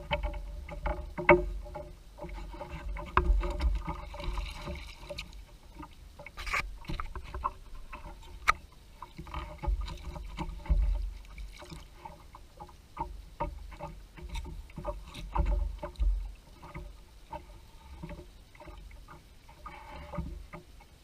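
Small boat on water: irregular knocks and clicks over a low rumble.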